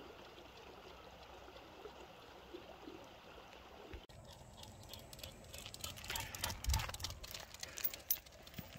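Faint steady outdoor hiss. Partway through it changes abruptly, and irregular footsteps and rustling scrapes follow, close to the microphone, from someone walking along a concrete farm road while filming.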